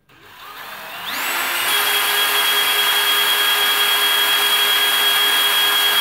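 DeWalt DCD796 cordless brushless hammer drill/driver spinning with no load in first gear: the trigger is squeezed and the motor whine climbs in pitch over about a second and a half, then holds steady at full low-gear speed, about 550 rpm at the chuck. It stops sharply right at the end as the trigger is released.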